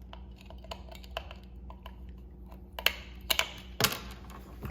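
Small plastic clicks and taps as batteries are fitted into the battery compartment of a small LED video light: faint and scattered at first, then a few sharper, louder clicks near the end.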